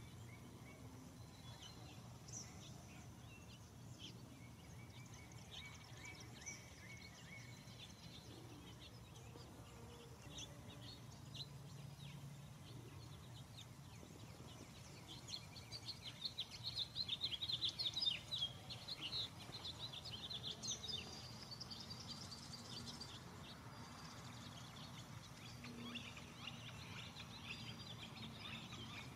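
Faint outdoor background noise with scattered bird chirps; about halfway through, a rapid run of high chirps becomes the loudest sound for several seconds.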